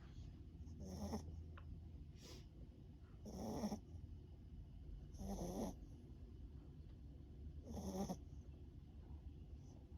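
A sleeping Pomeranian-Chihuahua mix dog snoring, one snoring breath every two seconds or so at an uneven pace, some stronger than others.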